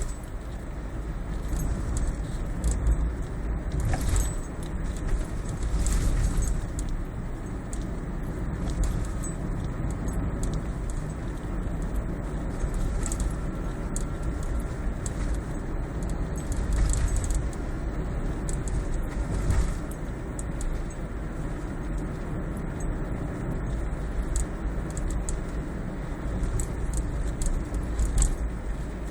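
Toyota Prius cabin with steady road rumble and irregular light clicks and rattles, an abnormal noise from beneath the instrument panel.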